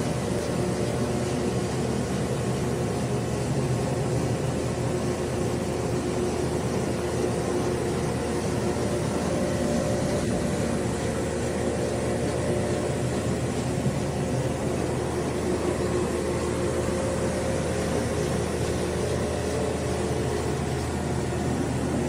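Roto 360 XL rotary carpet extractor running steadily as it cleans wet carpet: a constant motor hum mixed with the hiss of vacuum suction through its hose.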